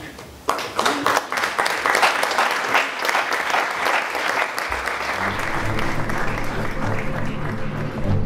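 Audience applauding, starting suddenly about half a second in and continuing steadily. Closing music fades in beneath the applause a little past halfway.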